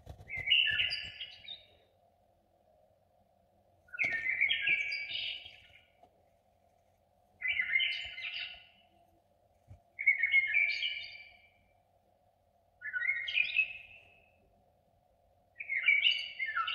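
A songbird singing short chirpy phrases, about one every three seconds, six in all, over a faint steady hum.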